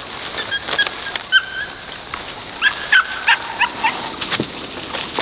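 Short, pitched bird calls: two or three in the first second and a quick run of about six just past the middle, over scattered clicks.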